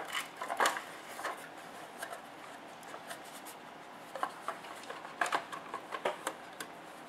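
Cab body parts of a 1/12-scale RC truck model knocking and clicking as they are handled and pressed together by hand. Short scattered taps, bunched about a second in and again from about four seconds on.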